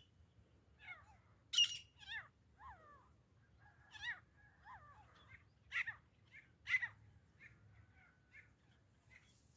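Grey francolins calling: a run of harsh, repeated calls made of short falling notes, loudest about one and a half seconds in and again near seven seconds.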